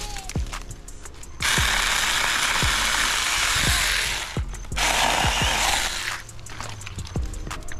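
Saker mini battery-powered chainsaw running in two bursts while cutting wood: about three seconds starting a second and a half in, then just over a second more. A background music beat plays underneath.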